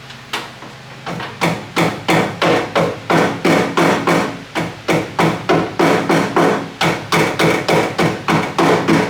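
Rubber mallet tapping new rubber weatherstrip down onto the metal edge of a 1973 VW Thing door, with a steady run of taps about three a second starting about a second in. Each tap rings briefly in the door panel.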